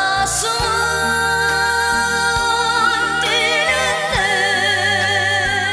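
A woman singing a song in long, held notes with vibrato, over instrumental backing with a bass line and a beat.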